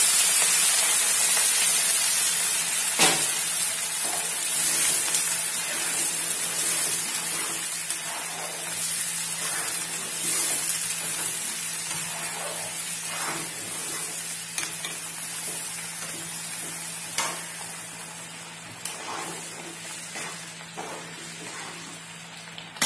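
Hot water sizzling as it meets fried broken wheat (daliya) in a hot non-stick pan. The sizzle dies down gradually as the pan is stirred with a spatula, which makes a few light knocks and scrapes.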